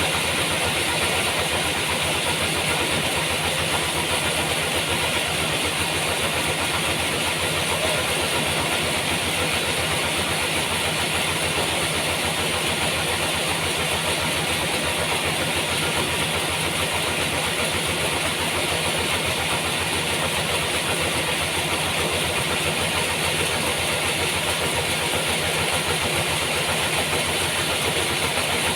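Homemade sawmill running steadily: a continuous machine drone with a strong hiss on top, holding the same level with no breaks.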